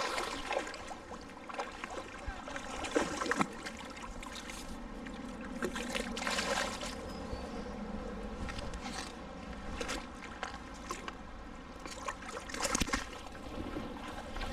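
River water running steadily, with a few brief, louder bursts of noise spread through it.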